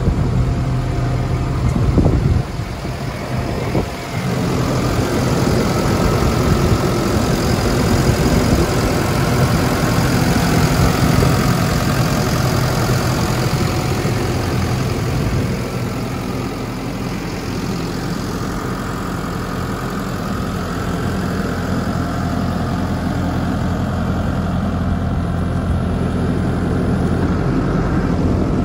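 Ravo 540 STH street sweeper's engine idling steadily with a constant low hum.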